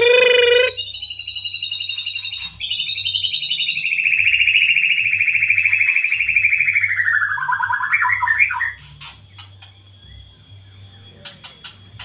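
White-rumped shama (murai batu) mimicking a lovebird's long 'ngekek' trill: after a short loud call at the start, a rapid trill runs for about eight seconds and slides lower near its end. Faint clicks follow in the last few seconds.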